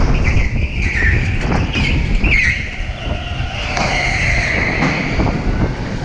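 Onboard sound of an electric go-kart at speed: a steady low rumble of the kart and air buffeting the mounted camera, with tyres squealing on the smooth concrete floor several times through the corners.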